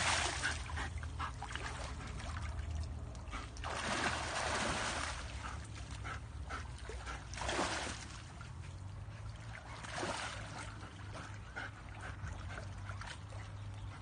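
Splashing and swirling of shallow muddy water as animals move through a stream, coming in surges about four, seven and ten seconds in, over a steady low rumble.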